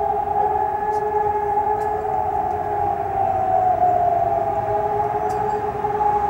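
Civil-defence siren sounding a steady held tone. It carries two pitches at once and wavers only slightly, without the rising and falling of an alarm wail.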